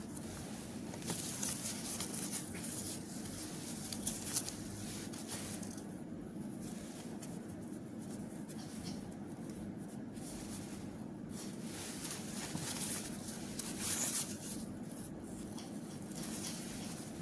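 Packaging rustling and crinkling as it is handled, in stretches that come and go over a steady low hum.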